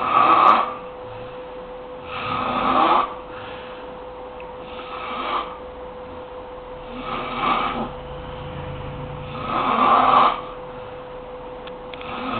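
Heavy snoring from a sleeper, one noisy snore about every two to two and a half seconds, rising in loudness to each peak and falling back. A faint steady hum runs underneath.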